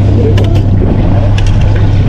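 Boat motor running steadily with a loud, even low hum, and a couple of light clicks over it.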